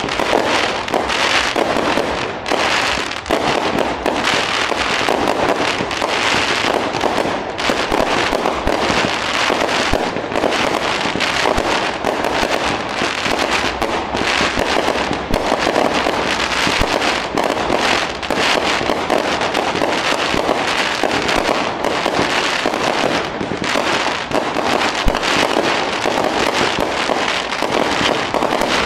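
Aerial fireworks display: a dense, unbroken run of shell bursts and bangs, one on top of the next with no pause.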